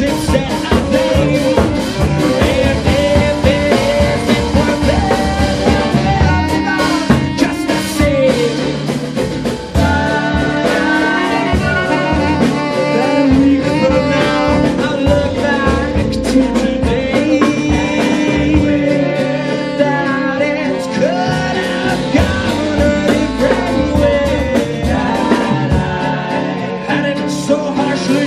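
Live hot-swing band playing an instrumental break: fiddle and saxophone over acoustic guitar, upright bass and drum kit.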